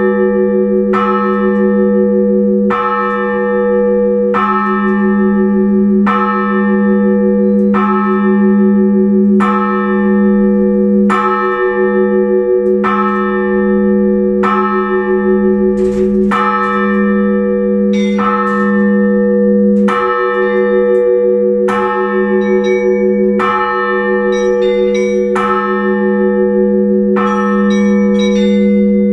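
Russian Orthodox church bells rung for the liturgy: struck strokes in an even beat, about one every one and a half to two seconds, over the continuous hum of a large bell. From a little past halfway, small high bells join in with quicker strokes.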